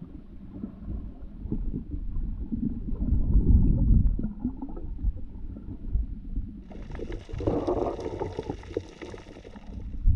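Muffled underwater rumble and gurgling heard through a submerged camera, with a brighter crackling hiss joining about seven seconds in and stopping just before the end.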